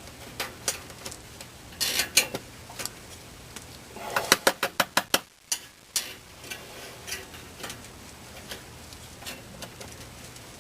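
Metal hemostat clicking and scraping inside an electrical box in a wall while fishing out dead bird remains: scattered sharp clicks with a quick run of them about four seconds in, over a faint steady hum.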